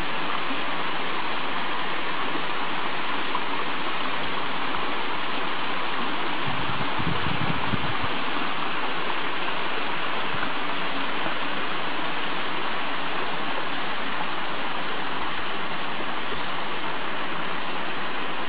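Small stream rushing and splashing steadily down a cascade over limestone rocks, with a brief low rumble about seven seconds in.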